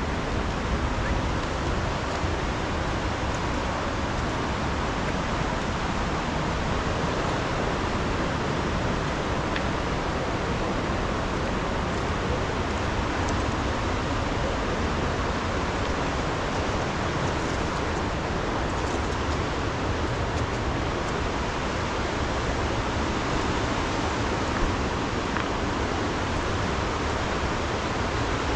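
Steady rushing noise of a flooded river's water, even and unbroken.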